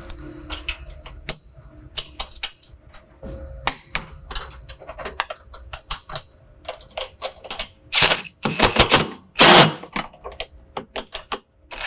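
Cordless impact driver running a bracket bolt down into a nylock nut held by a box wrench, in two short loud bursts about two-thirds of the way in. Before that, small metal clicks and taps of the hardware and wrench being fitted.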